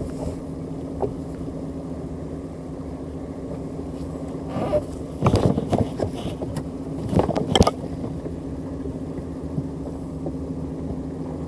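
Boat engine running steadily with an even hum. A few sharp knocks and rattles come in the middle.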